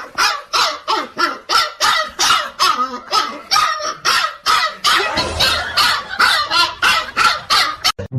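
A dog barking over and over, about three barks a second, without a pause, cutting off abruptly near the end.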